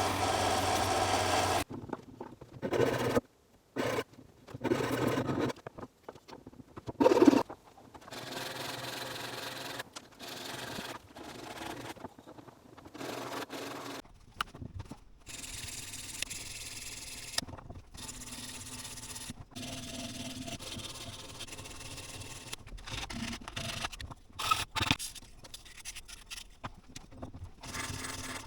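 Wooden letters being sanded: abrasive rubbing on wood in irregular passes with short breaks, louder and steadier in the first couple of seconds.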